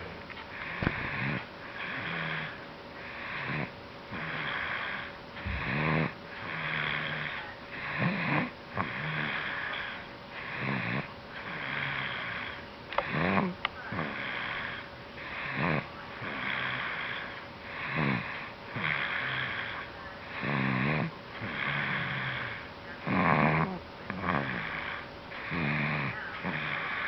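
Sleeper snoring in quick, regular breaths, each breath in and out heard as a rhythmic rasp that swells and fades evenly throughout.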